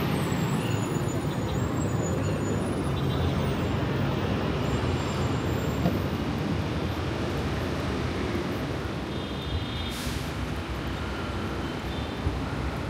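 Steady city road traffic: cars and buses passing on a busy multi-lane street, with a brief hiss about ten seconds in.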